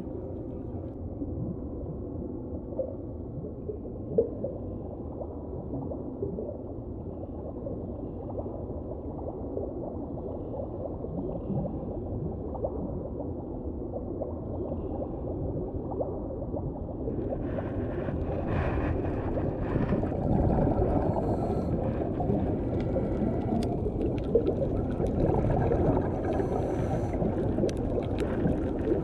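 Muffled underwater sound picked up through a GoPro's waterproof housing: a steady low rumble with a single sharp knock about four seconds in. A little past halfway it grows louder and brighter, with scattered crackles and clicks.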